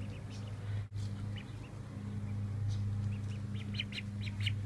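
Ducklings peeping: two short high peeps about a second and a half in, then a quick run of about five near the end, over a steady low hum.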